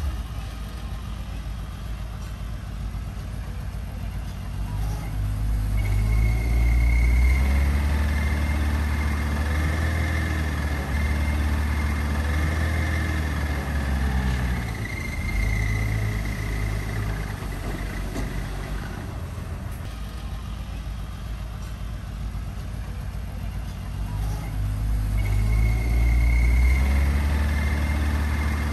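Heavy-equipment diesel engine running, working harder twice, once from about five seconds in and again near the end, with a thin high whine during the louder stretches.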